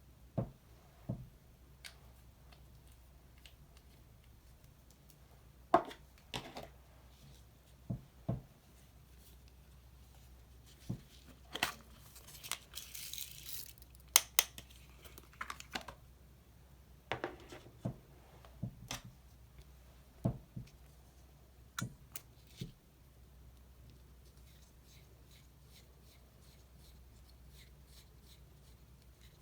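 Small objects handled by hand: scattered sharp clicks and taps, with a short tearing, crinkling sound about twelve seconds in, like packaging being torn or peeled open. Faint quick ticks follow near the end.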